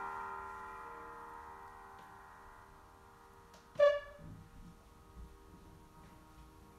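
A struck metal meditation chime ringing out, its tones fading slowly. About four seconds in it is struck again, a sharp ring that dies away within about a second.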